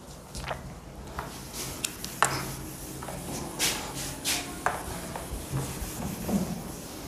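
A cloth being rubbed across a whiteboard, making short swishing strokes, among a few sharp clicks and knocks, the loudest knock about two seconds in.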